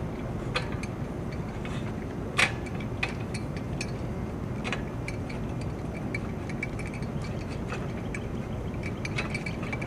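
Machinery running with a steady low rumble, with irregular metallic clinks and one louder clank about two and a half seconds in. The machinery is a gasoline-engine-powered percussion well-drilling rig.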